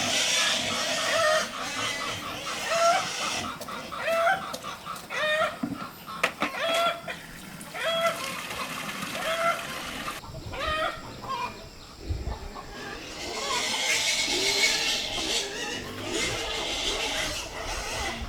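Chickens clucking: short hooked calls repeating about once a second. A spell of hiss-like noise comes up in the second half.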